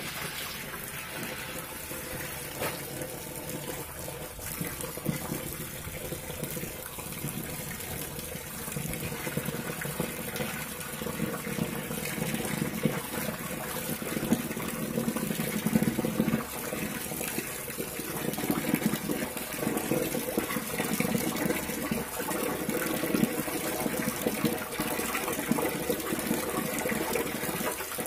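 Water running from a tap into a plastic basin of water, with hands swishing, rubbing and squeezing mushrooms in it as they are washed, giving irregular splashes over the steady pour.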